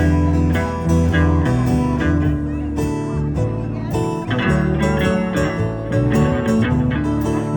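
Live band playing an instrumental passage of a song, with strummed guitar to the fore over bass and a steady beat.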